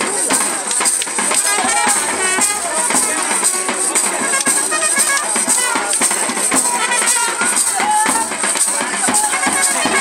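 Live folk percussion for a stick-fighting bout: drums and clashing metal cymbals beaten in a fast, continuous rhythm, with voices shouting over them.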